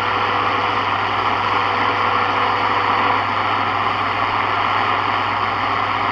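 Sony ICF-7601 shortwave portable radio's speaker hissing with steady static on the 21 MHz band, where no station is coming in. A faint steady whistle sits under the static and stops about halfway through, over a low hum.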